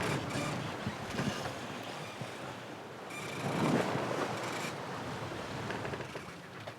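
Sea water washing along a sailboat's hull underway, with wind on the microphone; a louder surge of water builds and fades about halfway through.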